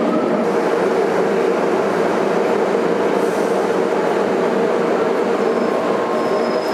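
MBTA Red Line subway train running alongside the platform: a steady rumble with a constant motor hum. A faint high-pitched squeal comes in near the end.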